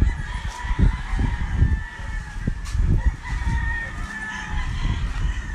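Gamecocks crowing across a farm yard, several long calls overlapping. Frequent low thumps knock on the microphone throughout.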